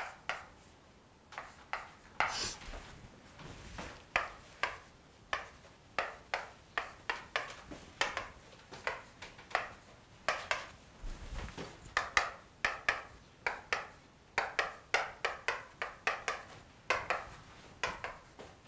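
Chalk writing on a blackboard: a quick series of short taps and scratches, two or three a second with brief pauses, as small numbers are written one after another.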